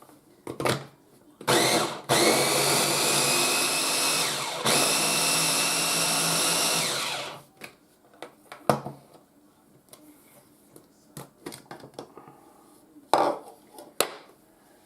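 Ninja electric chopper's motor running in pulses while it chops pinto beans: a short burst, then two longer runs of a few seconds each with a steady whine. Sharp knocks and clatters of handling the chopper come before and after.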